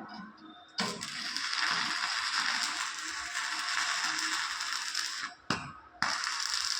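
Electric arc welding crackling and hissing. The arc is struck suddenly about a second in and runs steadily for about four and a half seconds, breaks off for a moment, then is struck again.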